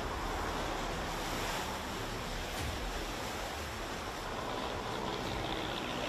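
Storm surf breaking over rocks and against a stone seawall: a steady rush of churning water.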